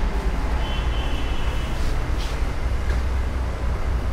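Steady low rumble of background noise, with a faint, brief high-pitched tone about a second in.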